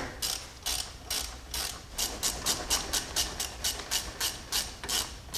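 Ratchet wrench clicking as it tightens the front brake caliper bolts, a steady run of about four sharp clicks a second.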